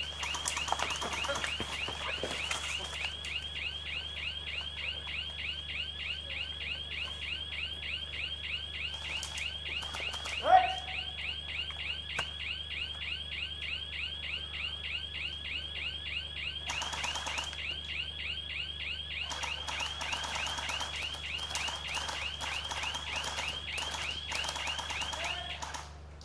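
An electronic alarm, most likely the game's bomb prop going off, sounds a rapid string of high chirps, several a second, and cuts off just before the end. There is a sharp, loud sound about ten seconds in, and several short noisy bursts.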